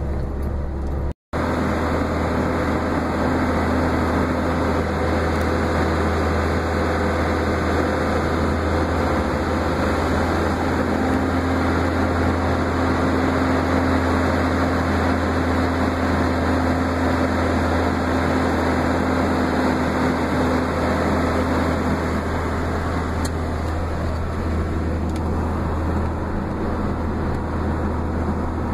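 Steady engine hum and road noise of a vehicle driving along a highway. The sound drops out completely for a moment about a second in.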